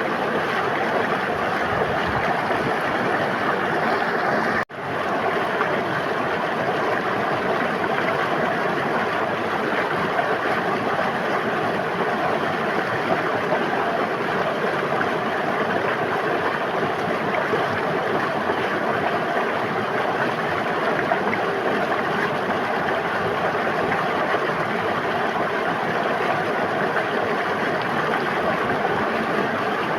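River water flowing and rushing in a steady, even stream. The sound cuts out for an instant about four and a half seconds in, then comes straight back.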